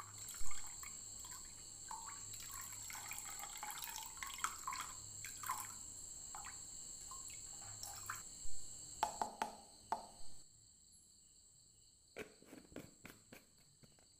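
Diesel being poured from one plastic bottle into another, trickling and gurgling for the first several seconds. Then comes a scatter of light clicks and crackles as the plastic bottles are handled.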